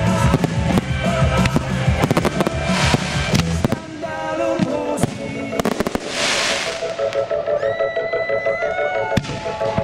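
Fireworks display: a dense run of bangs and crackling from bursting shells for the first few seconds, easing off, then a loud hiss about six seconds in. Music plays underneath, with held notes clearer toward the end.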